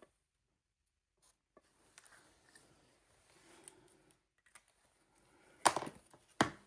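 Faint rustling of fabric being handled while cutting out circles, then two loud sharp knocks about a second apart near the end.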